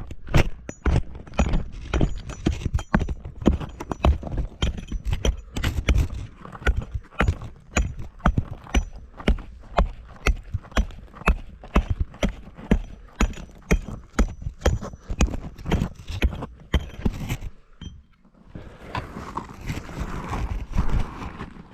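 Repeated hammer blows on solid rock, about two to three strikes a second, breaking rock away to widen a tight cave passage. The strikes stop about 17 seconds in, and near the end there is a rough scraping and rattling of loosened rock.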